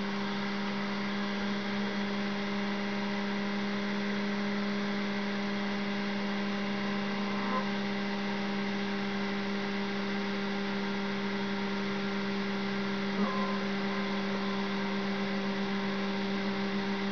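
Bench DC power supply humming steadily while delivering about three amps: a low steady tone with a fainter higher overtone. A couple of light clicks break in partway through.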